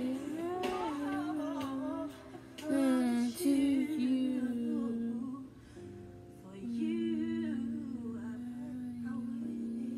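A woman singing and humming a slow melody with no words, holding long notes; the longest, steady note comes in the last few seconds.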